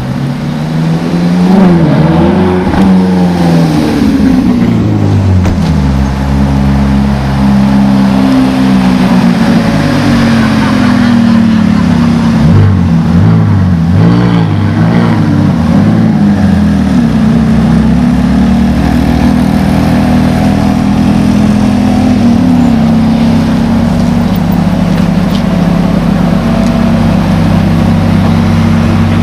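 Ferrari V8 engine revved repeatedly, its pitch rising and falling in several blips, then running steadily at a constant pitch for the last several seconds.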